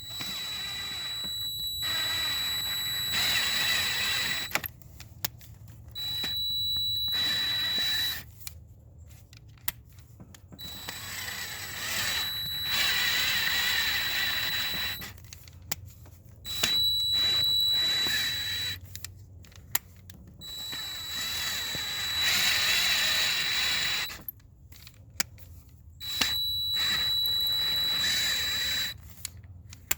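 Power drill running in about six short spurts of two to four seconds with a steady high whine, driving a Heli-Coil thread-repair insert into a stripped intake-manifold bolt hole, with a few clicks between spurts.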